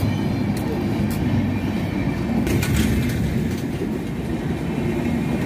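Passenger train's LHB coaches rolling along the platform: a steady low rumble of wheels on rail, with a few sharp clicks and knocks, several together about two and a half seconds in.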